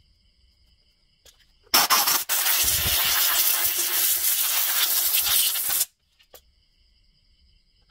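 A loud pressurized spray hissing for about four seconds, with a brief break just after it starts, then cutting off sharply, as the chainsaw's carburetor compartment is cleaned out. Insects trill steadily in the background.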